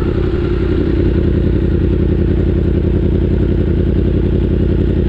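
Yamaha R1M's crossplane inline-four engine running steadily, holding an even pitch with no revving.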